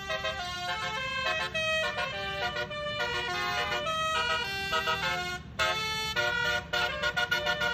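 Six-trumpet Basuri telolet air horn playing a quick tune of stepping notes over a steady low hum, with a brief break about five and a half seconds in.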